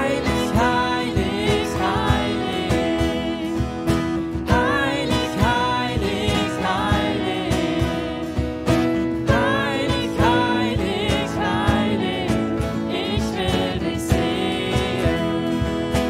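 Live worship song: an acoustic guitar strummed steadily while a young woman sings the melody in German.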